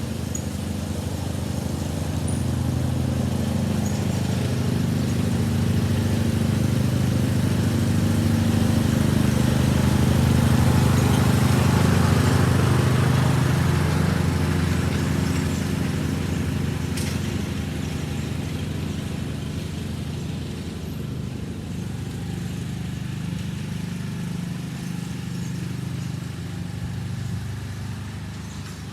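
John Deere riding lawn mower running steadily while mowing, growing louder toward the middle and then fading somewhat.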